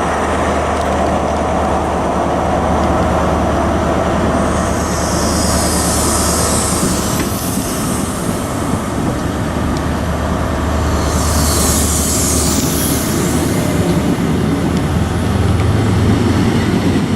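High Speed Train (Class 43 power car) running at the platform with a steady low diesel hum. Two loud bursts of high hiss come about five seconds in and again about eleven seconds in.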